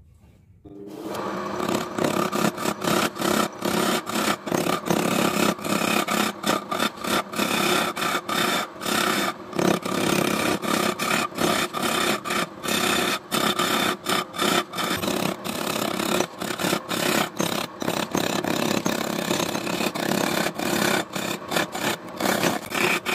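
A hand chisel cutting a wooden blank spinning on a belt-driven woodturning lathe: a continuous rasping scrape, broken by many brief gaps as the tool's contact varies. It starts about a second in.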